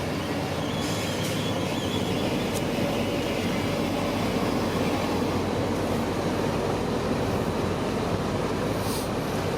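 Shantui crawler bulldozer working, its diesel engine and steel tracks making a steady mechanical din, with a few brief metallic clinks.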